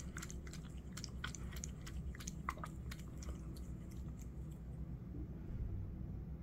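A cat eating wet shredded food from a bowl: quick, wet chewing and lapping clicks that thin out about halfway through as it lifts its head from the bowl.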